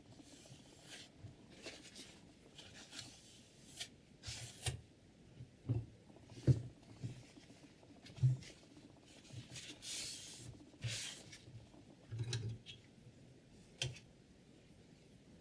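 Abrasive sharpening stone rubbing along a steel knife edge in a guided sharpening system, in irregular strokes of under a second, with light knocks of the stone and holder between them.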